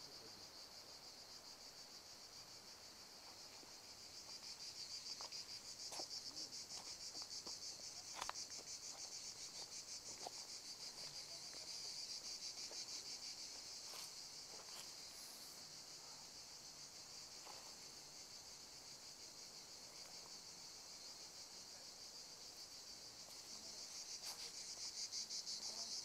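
Insects trilling steadily with a fine, rapid pulsing, faint overall and swelling a little twice, with a few faint clicks now and then.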